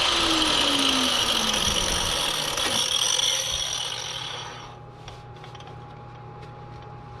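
A power cutting tool, used to cut off a seized, rusted sway bar link, winding down after the trigger is released: its pitch falls steadily and the sound fades out over about four seconds, leaving a faint steady hum with a few light ticks.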